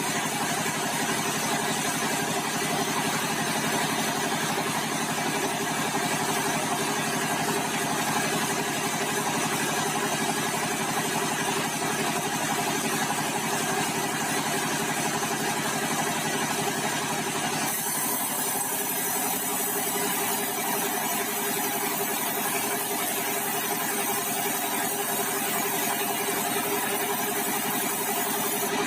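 Sawmill machinery running steadily: an engine-like hum with a steady hiss over it. About 18 seconds in the sound changes, the hiss growing brighter while the middle of the sound drops back.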